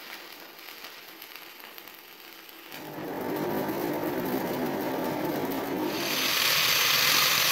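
Electric arc welding on steel: the arc crackling and sizzling, faint at first, louder from about three seconds in, and turning to a brighter, sharper hiss about six seconds in.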